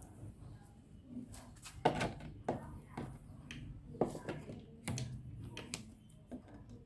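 Scattered light clicks and knocks of handling on a workbench, about five sharp taps spread over a few seconds.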